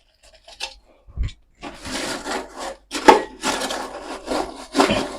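Rough scraping and rubbing strokes, about five in a row over the last three seconds, as blended charcoal is spread through wood-shavings and sawdust litter on a poultry house floor. A soft knock comes about a second in.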